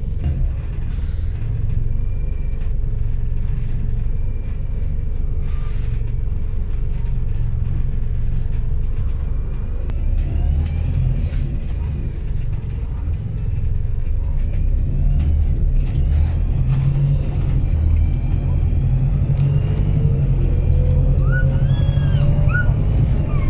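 City bus engine and drivetrain running, heard from inside the passenger saloon as a steady low rumble. It grows louder about two-thirds of the way through, with a slowly rising whine as the bus picks up speed, and a few short high squeals near the end.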